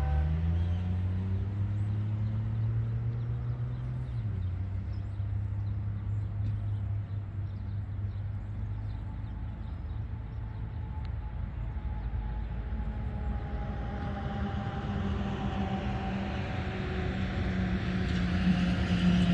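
Diesel freight locomotive approaching unseen, a steady low engine drone that grows louder towards the end. Stacked horn tones die away at the start, and higher tones build again near the end as the train draws closer.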